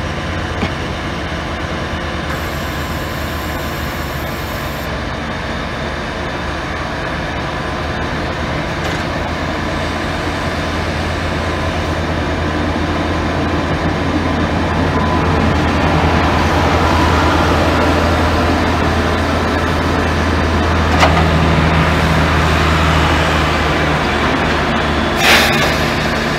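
Krone forage harvester's diesel engine running steadily while its hydraulics fold the XCollect 750-3 maize header into transport position. The hum swells about halfway through, and two sharp knocks come near the end.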